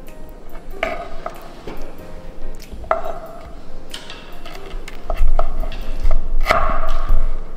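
Metal spoon scraping and knocking against tomato slices on a wooden cutting board, a string of separate sharp clicks, each with a brief ring. The knocks are heaviest between about five and seven seconds in.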